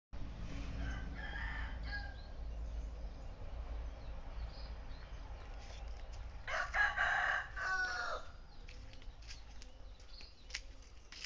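A rooster crows once, a call of nearly two seconds about two-thirds of the way in, over a steady low rumble.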